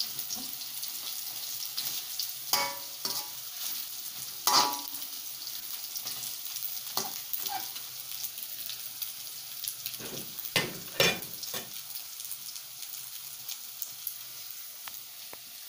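Instant noodles and egg frying in a wok with a steady sizzle, while a spatula scrapes and knocks against the wok now and then: a few sharp strokes, the loudest about four and a half seconds in and a pair around eleven seconds in.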